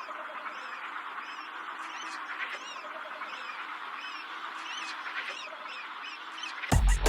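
A recorded flock of birds calling over a steady noisy bed, with many quick chirps. Near the end, an electronic music loop with heavy bass drums comes in loudly.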